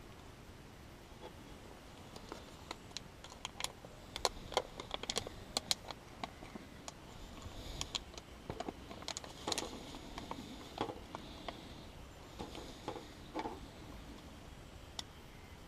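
A run of irregular light clicks and taps, thickest between about four and ten seconds in, then thinning out to a few scattered ones.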